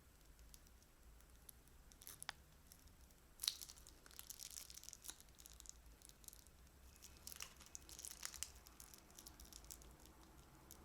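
Faint crackling and crinkling from crunchy slime being handled in plastic piping bags. It comes in several short clusters of crisp clicks, the loudest a sharp crackle a few seconds in.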